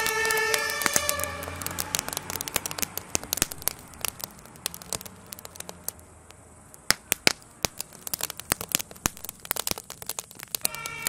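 A burning garden shed crackling and popping, with many irregular sharp cracks. A two-tone emergency-vehicle siren fades out in the first second or so and sounds again near the end.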